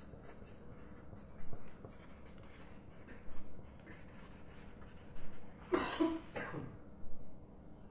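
Felt-tip marker writing on a sheet of paper on a desk: a run of short scratchy strokes as letters are formed, with one louder sound lasting about half a second about six seconds in.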